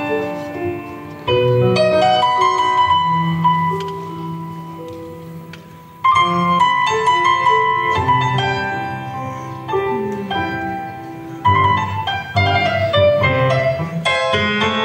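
Piano playing a flamenco guajira, in phrases of chords and runs that fade away and start again with a strong entry about six seconds in and again a few seconds before the end.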